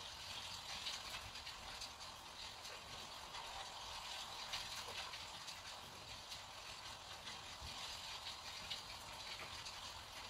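Flat paintbrush scratching and swishing over rough, heavy watercolour paper as it lays down a wet wash: a faint, continuous papery hiss with fine crackle from the bristles dragging on the paper's tooth.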